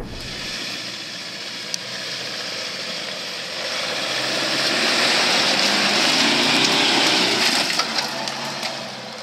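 A Toyota Hilux pickup driving past close on a dirt forest track: a rushing vehicle noise that swells to its loudest a little past the middle and then fades as it goes by, with a few sharp ticks.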